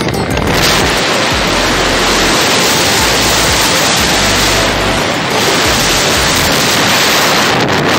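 Wind rushing over the microphone of a motorcycle moving at highway speed: a loud, even noise.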